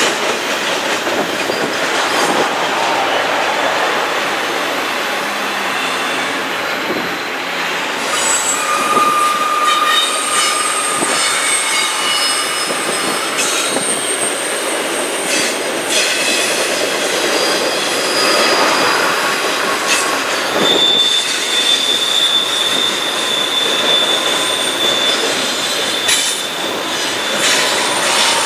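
Intermodal freight train's loaded well cars rolling past, steel wheels clattering on the rail. From about eight seconds in, high steady wheel squeals come and go, one held for several seconds near the end.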